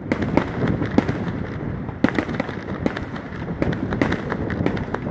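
Aerial firework shells bursting overhead: a dense, irregular run of sharp bangs and crackles, several a second, over a continuous rumbling background.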